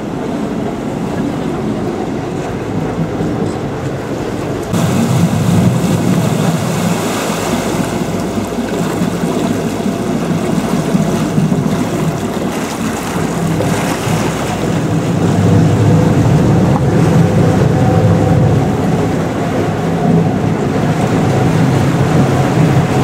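Vaporetto water bus under way: its engine drones steadily while water rushes past the hull. The engine and water noise grow louder about five seconds in and again around fifteen seconds.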